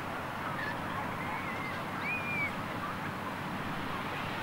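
Steady outdoor wind and sea noise, with a few short high chirps about a second and two seconds in.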